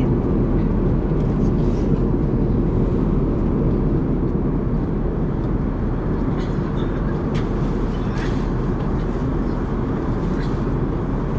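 Steady cabin noise of an Airbus A380 airliner: an even, low rushing noise, with a few faint clicks.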